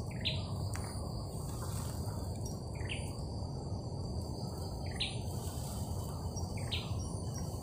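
Forest ambience: a steady high-pitched insect drone, with a bird's short call repeating four times about two seconds apart, over a low steady rumble.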